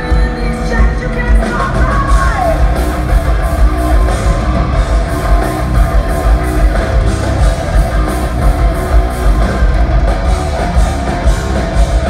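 Heavy metal band playing live and loud: distorted guitars, heavy bass and drums hitting a steady beat.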